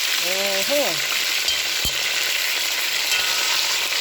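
Chicken drumsticks frying in hot oil in a pot: a steady, dense sizzle. A short hum near the start and a single sharp knock about two seconds in, as of a utensil against the pot.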